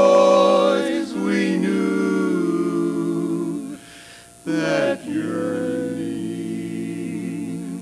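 Male barbershop quartet singing a cappella in four-part harmony, holding long, slowly moving chords. The sound breaks off for about a second near the middle before the next phrase begins.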